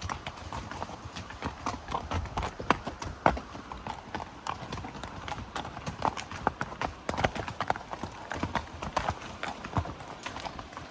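Hooves of a string of horses and pack animals walking, a steady run of irregular, overlapping clip-clop footfalls.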